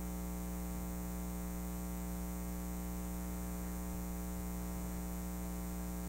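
Steady electrical mains hum, a low buzz made of many evenly spaced tones at an unchanging level.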